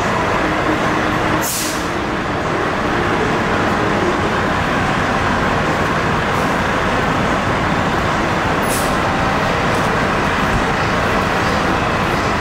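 Diesel engine of a 2001 Seagrave rearmount ladder truck idling steadily. Two short, sharp hisses of released air come about a second and a half in and again about two thirds of the way through.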